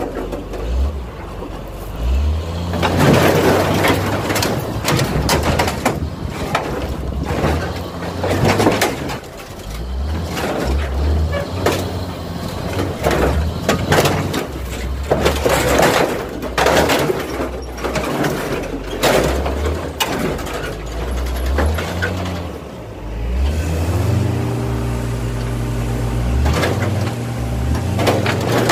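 John Deere 544K wheel loader's diesel engine revving up and down as its bucket shoves a torn-apart box truck body into a car crusher, with repeated crunching, scraping and banging of bending sheet metal. The engine settles into a steadier note near the end.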